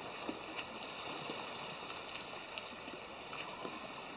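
Water rushing and lapping along a moving boat's hull: a steady hiss with scattered faint splashes. A faint steady high whine runs underneath.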